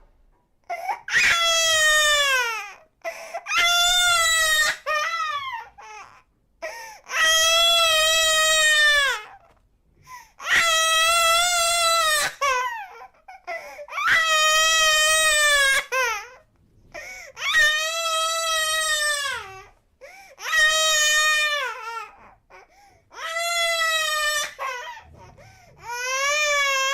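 A baby crying in about nine long, loud wails, each a couple of seconds long and falling in pitch at its end, with short breath pauses between them.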